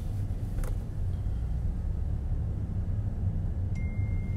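Steady low rumble of a car's engine and road noise heard from inside the cabin while driving, with a faint click early and a faint short high tone near the end.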